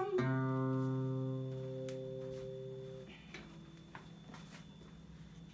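Final strummed guitar chord of the song, left ringing and slowly fading, then muted about three seconds in. A few faint knocks and clicks follow as the guitar is handled.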